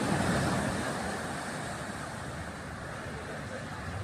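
Sea surf washing on a beach, with wind, a steady rushing noise that eases a little over the first second and then holds even.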